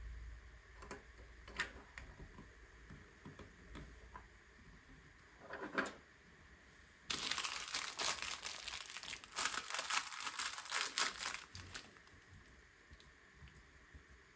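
Plastic LEGO parts bag crinkling and tearing open, a dense crackly rustle lasting about five seconds from about halfway in, after a short rustle and a few light clicks of pieces.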